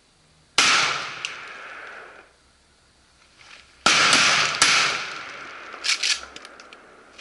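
Shotgun shots: a shot about half a second in, then a string of shots from about four seconds in, each followed by a long echoing tail rolling across the water.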